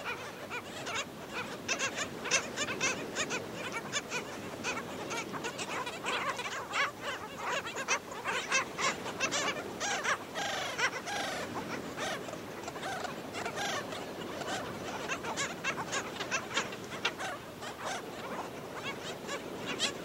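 A colony of black skimmers calling without pause: a dense chorus of short, barking yaps, with a longer, wavering call about ten seconds in.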